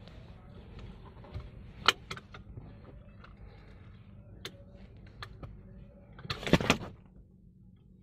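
Clicks and rattles of a car seat belt being handled: the metal tongue and plastic fittings knocking as the webbing is pulled, with a sharp click about two seconds in and a louder clatter near the end.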